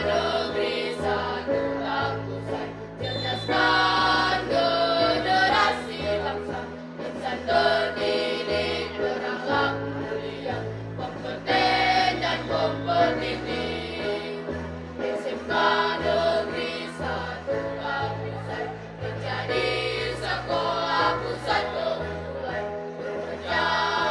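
A mixed school choir of girls and boys singing together with an accompaniment that carries a bass line moving in held, stepping notes.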